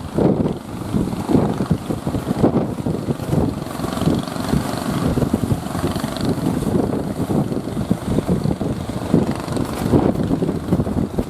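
Strong wind buffeting the microphone: a loud, gusty rumble that rises and falls in rough pulses.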